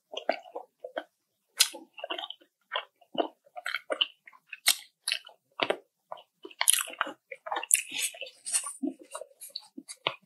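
A person chewing balut, the boiled fertilized duck egg with its chick, close to the microphone: an irregular string of wet mouth smacks and clicks, busiest a little past the middle.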